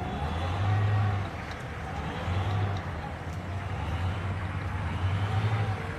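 A heavy vehicle's engine rumbling, its low drone swelling and easing every second or two.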